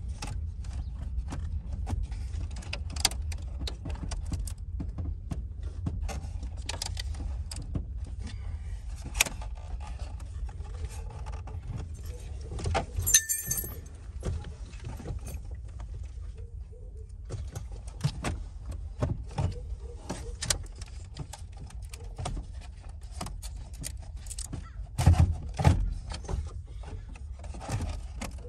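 Scattered clicks, rattles and knocks of plastic dash trim and loose parts being handled while the car's dash is taken apart, over a steady low rumble. A brief high squeak comes about halfway through, and the loudest knocks come a little before the end.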